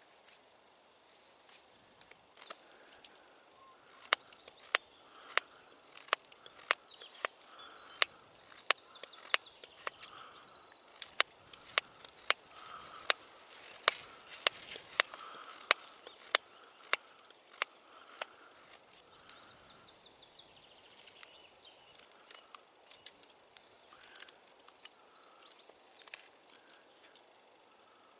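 Knife carving a peeled wooden plug by hand: a run of sharp clicks, about one or two a second, as the blade cuts into the wood, thinning out after about eighteen seconds.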